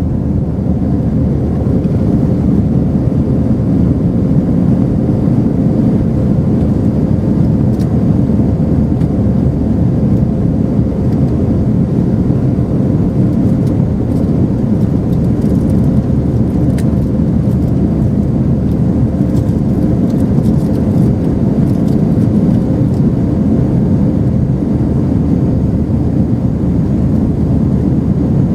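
Steady low rumble of an Airbus A319-131's IAE V2500 engines and airflow heard inside the passenger cabin after take-off, with a faint steady hum and no change in level.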